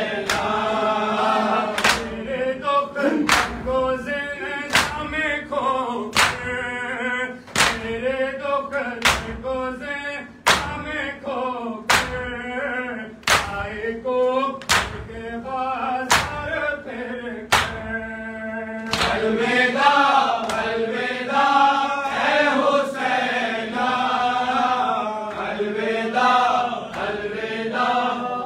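Men chanting a Farsi noha together, with sharp chest-beating slaps of matam in a steady rhythm, two beats about every second and a half. The slaps stop about two-thirds of the way through while the chanting goes on.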